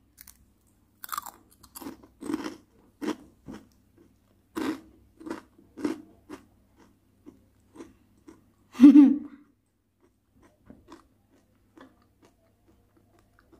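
Crunching and chewing of karak, crisp crackers made from dried leftover rice, bitten and chewed close to the mouth. The crunches come about every half second at first, then get softer and sparser, with one louder crunch about nine seconds in.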